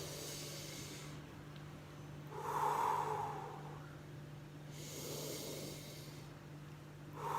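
A woman taking slow, deep breaths in and out during steam inhalation under a towel over a bowl of hot water. About four breaths, each roughly a second and a half long, over a faint steady hum.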